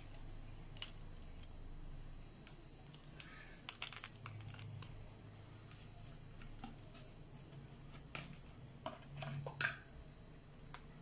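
Faint, scattered light clicks and taps of a spoon and a plastic ice-cream tub being handled, over a low steady hum; the taps are a little denser about a third of the way in and again near the end.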